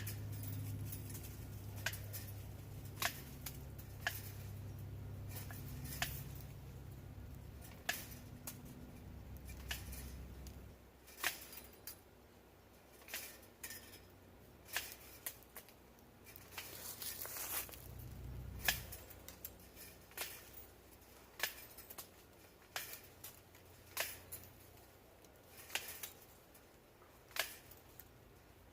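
Sharp snipping clicks from a hand tool working on wire fencing, about one every second or so. A low hum underneath stops about eleven seconds in.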